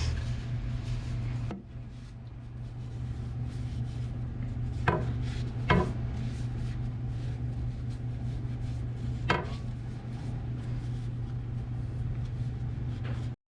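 A steady low mechanical hum with three sharp metal clinks, hand tools knocking against the skid steer's hydraulic fittings.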